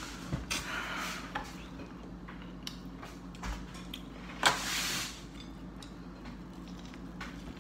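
Close-up eating sounds of corn on the cob and seafood being chewed and smacked, with scattered small clicks. One sharp, louder noise about four and a half seconds in, followed by a brief hiss.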